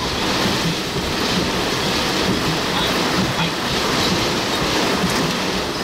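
Microburst winds driving heavy rain: a loud, steady rush of wind and rain.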